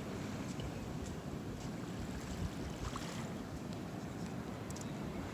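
Steady wash of ocean surf, a continuous low rush of breaking waves.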